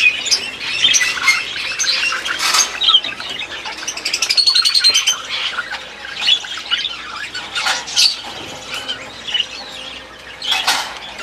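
A flock of budgerigars chirping and chattering with frequent squawks. About four seconds in there is a quick run of rapid chattering notes.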